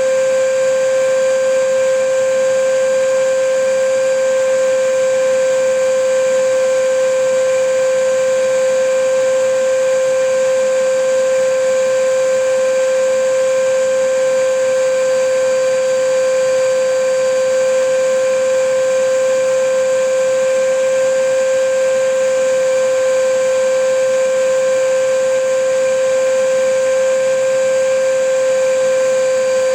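Vacuum cleaner running steadily: a constant high motor whine over an even rushing hiss, with no change in pitch or level.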